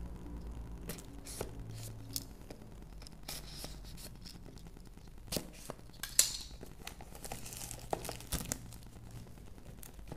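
Product packaging being torn open and handled: tearing and crinkling with scattered sharp clicks and taps, the loudest about six seconds in.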